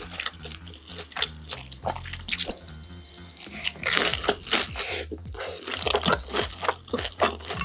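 Close-up wet eating sounds of jajangmyeon: soft sticky mouth clicks and chewing, with a louder slurp of the saucy noodles about four seconds in.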